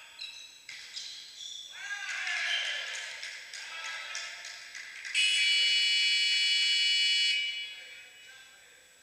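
Players' shouts and calls in a sports hall, then, about five seconds in, a loud steady buzzer tone lasting about two seconds before cutting off.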